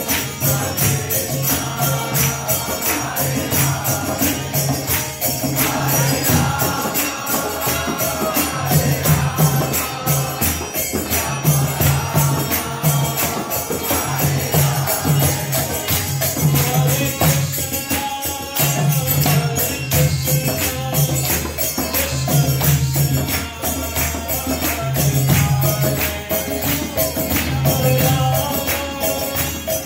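Devotional kirtan: a group chanting a mantra together over steady, rhythmic jingling hand cymbals, with hand claps and a pulsing low beat.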